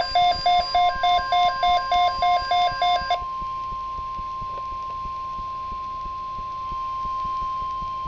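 NOAA Weather Radio alert: a weather radio receiver's alarm beeps rapidly, about four times a second, for roughly three seconds over the steady 1050 Hz warning alarm tone. The tone then sounds alone, unbroken. It is the attention signal that opens a tornado watch broadcast.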